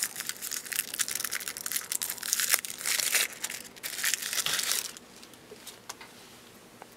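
Crinkly packaging being pulled off a brushless gimbal motor by hand: a dense run of rustling and crackling that stops about five seconds in.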